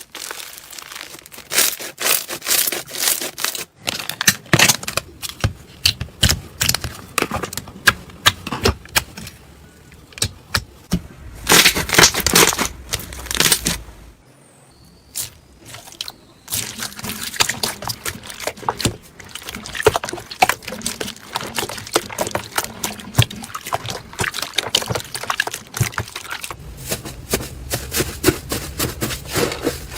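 Slime being squeezed, pressed and pulled by hand, with a dense run of crackling clicks and wet pops and a quieter stretch about halfway through.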